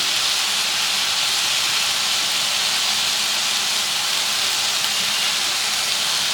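Tomatoes, onion and fresh curry and coriander leaves frying in hot oil in a kadai: a steady, even sizzle.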